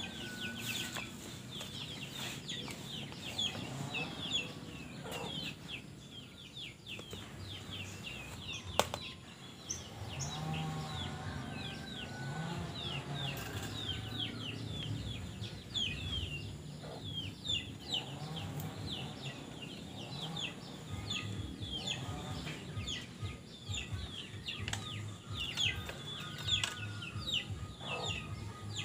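Birds chirping rapidly and continuously, with chickens clucking now and then. A single sharp click stands out about nine seconds in.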